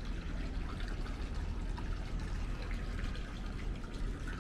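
Steady marina background noise: a constant low rumble under a hiss, with faint scattered ticks.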